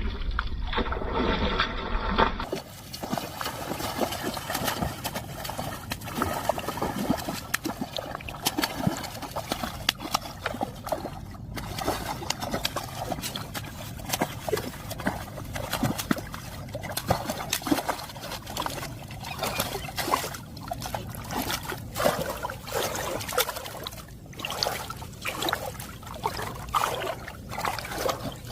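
Water splashing and trickling, with many small irregular splashes and drips.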